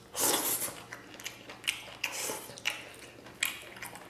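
Someone eating a mouthful of stir-fried pork liver with rice: a loud wet mouth sound as the bite goes in, then chewing with scattered short clicks and smacks.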